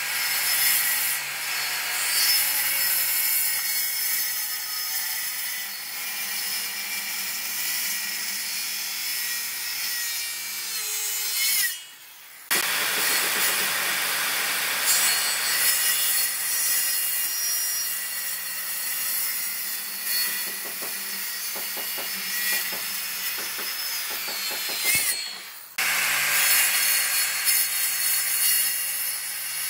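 Makita handheld circular saw running under load as its blade rips lengthwise through a faceted wooden post, a steady high whine over the noise of the cut. The sound drops away briefly twice, after about twelve and about twenty-five seconds, then resumes.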